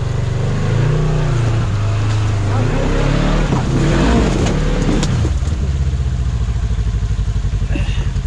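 Polaris RZR XP1000's twin-cylinder engine revving under load as it strains to climb a rock ledge. The revs rise to a peak about four seconds in, then drop back to a pulsing idle.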